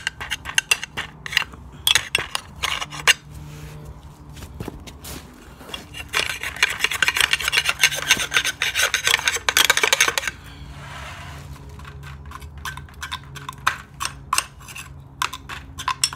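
Caked dirt being scraped and brushed by hand off a lawn edger's metal blade guard and blade. It starts as a run of quick scratchy scrapes, turns into a dense rasping scrape for a few seconds about midway, then thins to scattered light scratches.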